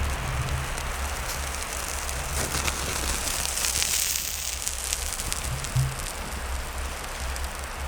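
Food cooking over a campfire: a steady sizzling hiss with scattered crackles, busiest a few seconds in, over a low, uneven rumble.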